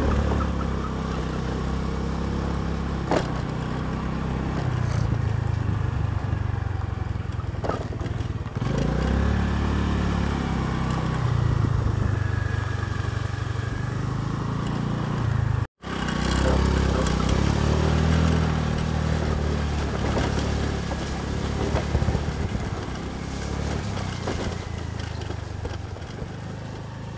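Honda Dio scooter's small single-cylinder engine running while being ridden over a rough track, its note rising and falling again and again with the throttle, with a few sharp knocks from the ride. The sound cuts out for an instant about halfway through.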